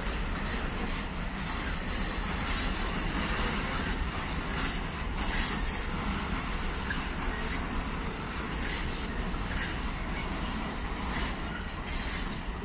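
Freight train of open wagons rolling past, a steady rumble with irregular clicks from the wheels over rail joints.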